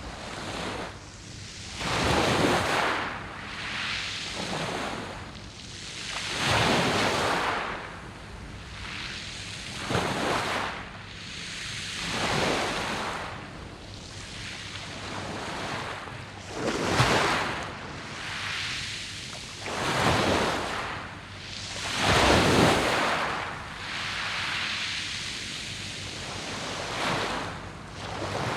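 Waves breaking on a pebble beach, each one surging in and washing back about every two to four seconds, some much louder than others.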